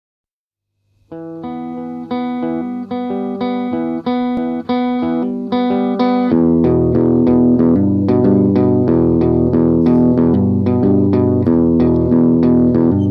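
Guitar music. After about a second of silence, single picked notes ring out slowly, a little more than one a second. About six seconds in, a fuller, faster picked pattern with low bass notes comes in.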